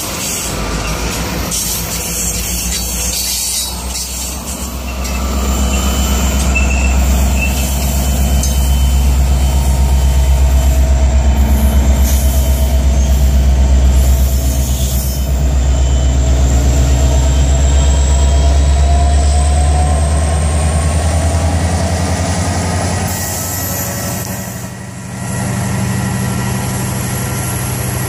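Freight train passing close: covered hopper cars roll by, then a Union Pacific diesel locomotive passes, its deep engine rumble swelling to its loudest around the middle and dropping away a few seconds before the end. Long high-pitched wheel squeal slides slowly in pitch over the rolling noise.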